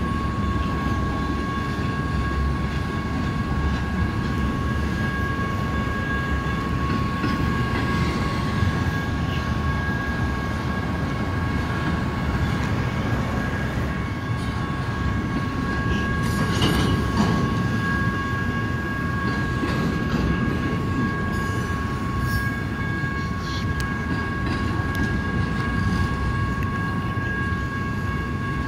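Long BNSF double-stack intermodal freight train rolling past a grade crossing: a continuous rumble of well cars on the rails, with a steady high ringing tone over it. About 17 seconds in there is a brief louder clatter.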